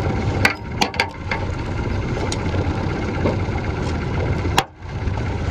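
Boat motor running with a steady low drone while a fish is brought to the boat. A few sharp knocks about half a second and a second in, and another near the end just before the sound briefly drops away.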